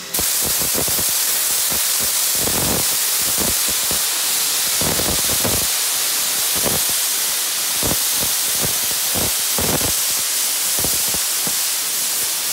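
Ivatt Class 2MT 2-6-0 steam locomotive's safety valves blowing off: a loud, steady hiss of escaping steam, the sign of the boiler at full working pressure. Irregular low rumbles run underneath.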